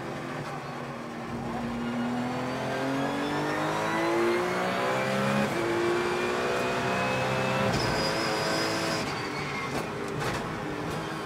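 Porsche 911 GT3 Cup's flat-six engine heard from inside the cockpit, rising in pitch as the car accelerates hard, then levelling off and easing back near the end as the driver lifts.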